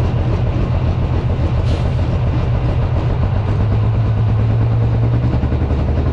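Diesel super stock pulling tractor engine running at the starting line with a loud, steady deep drone. The drone strengthens slightly about four seconds in and shifts just after five seconds as the stack smoke darkens.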